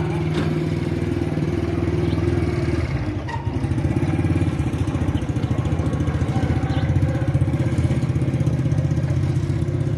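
An engine idling steadily with a fast, even throb.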